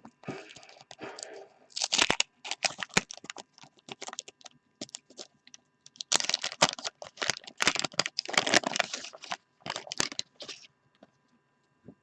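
Wax-paper trading-card pack wrappers crinkling and tearing as a pack is opened and its cards handled, in several spells of crackling rustle, busiest a couple of seconds in and again from about six to nine seconds, dying away near the end.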